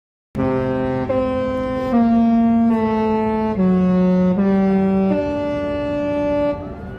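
Disney Cruise Line ship's musical horn playing a short tune: seven loud, held notes in a row, each under a second except the longer last one, starting abruptly.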